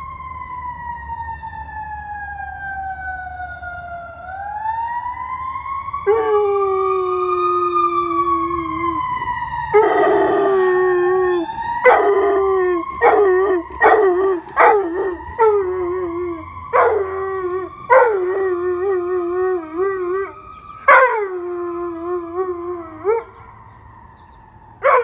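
A fire truck's siren wails, sweeping down and back up, then holding and wavering before it fades near the end. From about six seconds in, a silver Labrador retriever howls along with it in a string of long howls, each starting high and sliding down.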